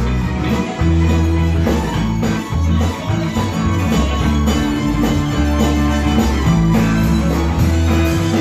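Live rock band playing: electric guitars, drum kit and keyboard over held low bass notes that shift every second or so.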